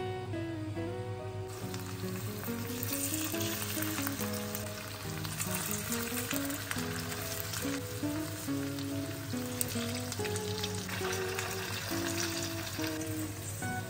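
Chicken-breast and grated-potato patties sizzling and crackling as they fry in hot oil in a nonstick frying pan. The sizzle starts about a second and a half in, over light background music.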